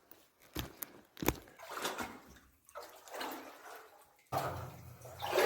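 Footsteps sloshing through shallow water on the floor of a flooded mine adit, with a few sharp knocks of boots on rock. A louder, continuous splashing starts suddenly near the end.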